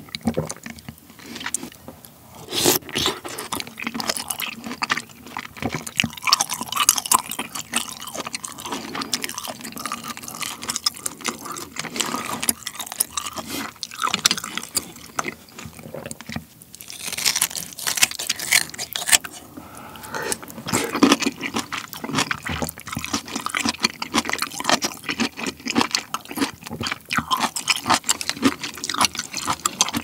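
Close-miked wet chewing and mouth sounds of a person eating kimchi stew with pork belly, many small clicks and crackles running on without pause.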